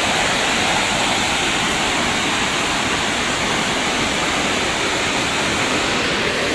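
A river in flood rushing past and spilling over a waterfall: a loud, steady roar of water, swollen by recent rain.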